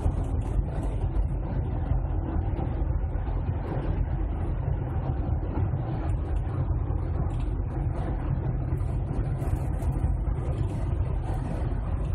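Steady drone of road and engine noise inside a car's cabin at motorway speed, heaviest in the low end.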